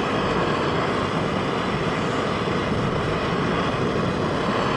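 Canister gas camping stove burning at a strong blue flame under a metal pot of water, a steady rushing of the burner that does not change.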